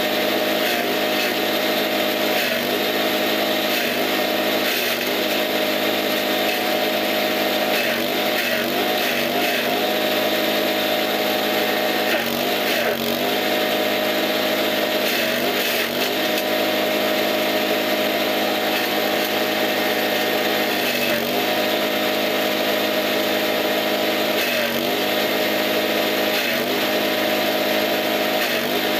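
Small engine driving a forage chopper, running steadily at high speed while green fodder is fed in and chopped. Its pitch sags briefly every few seconds, as each bundle loads the cutter, then recovers.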